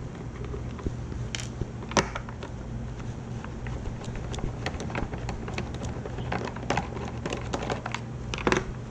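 Small screwdriver working screws out of a hard plastic instrument case: scattered light clicks and scrapes, with a few sharper knocks about two seconds in and near the end, over a steady low hum.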